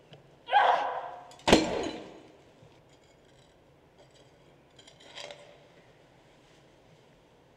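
A white ceramic sink dropped onto stone rubble: a ringing knock about half a second in, then a sharp smash of breaking porcelain about a second later. Small clinks of shards follow, and there is a softer knock about five seconds in.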